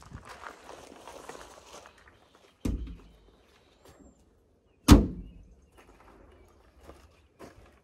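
The metal cab door of a 1970 Subaru Sambar micro truck being worked. There is a dull thunk about two and a half seconds in, then a sharp slam about five seconds in, the loudest sound.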